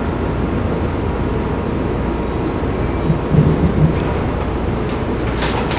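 Inside an MBTA Blue Line Type 4 subway car: the steady running noise of the train, with a few brief louder thuds and faint short squeals about three seconds in, and some sharp clicks near the end.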